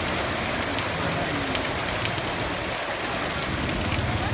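Rain falling steadily, an even hiss with scattered sharp drop ticks.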